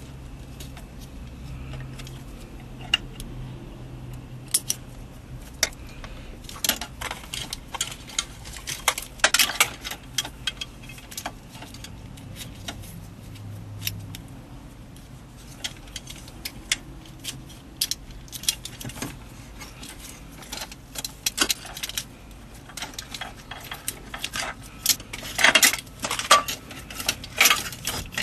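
Small plastic and metal clicks and rattles from handling a car radio's wiring connector, as terminal pins are pulled out of it and pushed into an add-on harness. The clicks come irregularly, with a busier cluster near the end.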